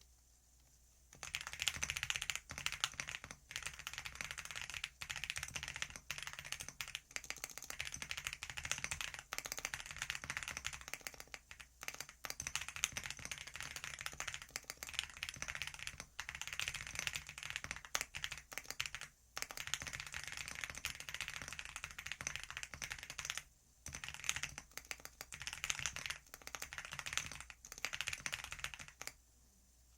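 Fast, continuous typing on a computer keyboard: rapid key clicks with a few short pauses, starting about a second in and stopping just before the end.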